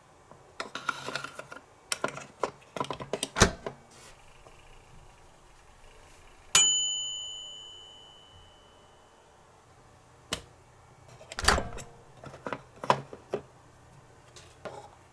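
Small hard pieces clicking and tapping against miniature toy kitchenware in quick clusters. About six and a half seconds in comes a single bright bell-like ding that rings away over a couple of seconds, and then more scattered taps and clacks follow.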